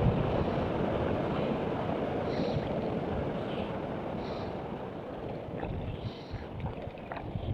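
Wind buffeting the microphone: a steady low rumble and hiss that slowly eases off, with a few faint high blips.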